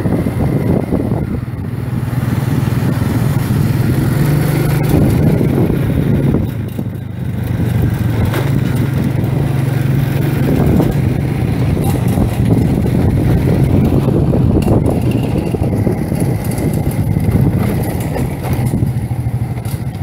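Motorcycle engine running steadily at an even, low pitch, with a brief drop in level about six and a half seconds in.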